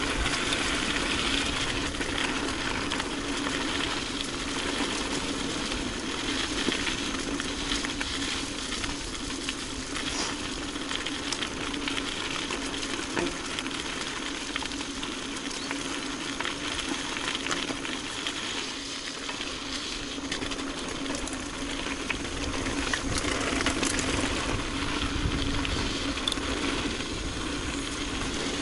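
Mountain bike riding along a trail: steady rolling and tyre noise with a steady hum beneath and frequent small clicks and rattles from the bike.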